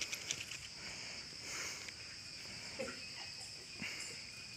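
Insects chirring in a steady, high-pitched drone, with a few faint clicks near the start.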